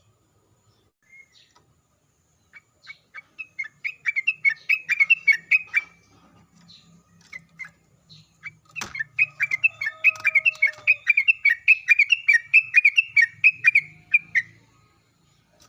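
Yellow-vented bulbul (trucukan) singing a fast string of short, repeated chattering notes, about four a second. There are two runs: a shorter one, then a longer one that starts just after a sharp click and lasts about five seconds.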